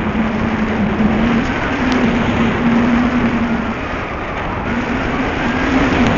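Cox .049 Black Widow glow engine of a small RC model plane in flight, a steady high-pitched buzz that fades briefly about four seconds in and comes back. Heavy wind rumble on the microphone runs underneath.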